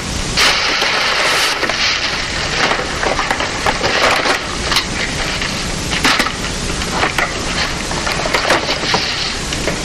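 Tissue paper rustling and crinkling as it is pulled out of a paper gift bag: a continuous crackle broken by many sharp crinkles.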